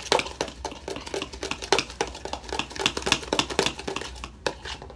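Slime being stirred in a clear plastic bowl, with quick, irregular clicks and knocks against the bowl several times a second that thin out and stop about four and a half seconds in.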